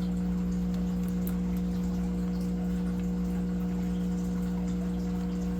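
Reverse-osmosis unit's electric booster pump running with a steady hum, water running through it.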